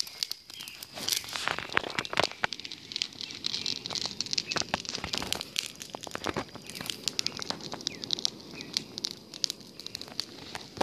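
Small fire of dry twigs and grass crackling, with many irregular sharp snaps and pops.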